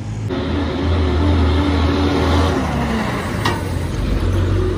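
Truck passing close by with its engine running loud, a low steady hum whose pitch falls about two and a half seconds in. There is a sharp click about three and a half seconds in.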